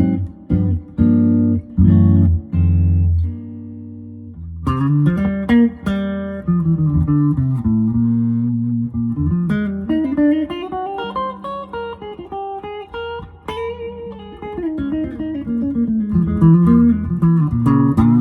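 Les Paul-copy electric guitar with a bolt-on neck being played: short, clipped chord stabs for the first few seconds, then single-note lead lines with string bends, returning to chords near the end.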